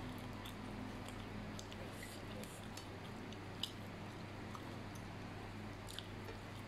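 Light clicks and taps of chopsticks against a plate as fried chicken is pulled apart and laid on the noodles, with one sharper tick a little past the middle. A steady low hum runs underneath.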